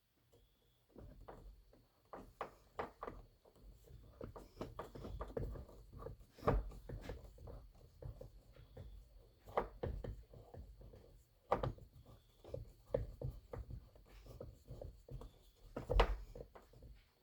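Irregular clicks, taps and knocks of hands working on a car's door panel and its trim screws, with a sharper knock about six seconds in and the loudest one near the end.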